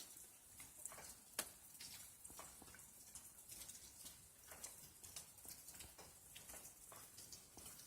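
Faint, irregular pattering and small ticks of motor oil being poured from a bottle through a funnel into a small generator's crankcase.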